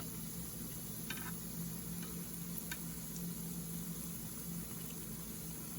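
Mashed potato fries sizzling in hot oil with a steady hiss, over a steady low hum, with a couple of faint clicks.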